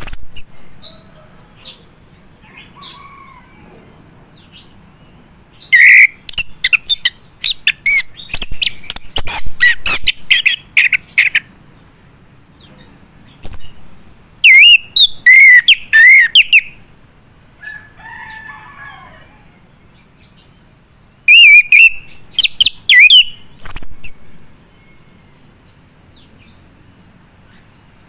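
Male chestnut-capped thrush (anis kembang) singing in three loud bursts of rapid whistled phrases with quick rising and falling notes, separated by pauses.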